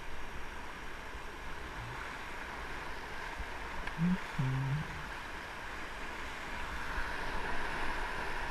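Whitewater rapids rushing and churning around an inflatable raft, a steady roar of water that swells toward the end. There is a brief low pitched sound about four seconds in.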